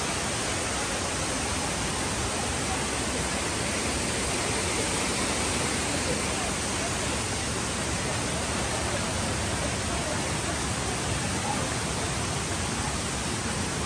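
A steady rush of running water, even and unbroken.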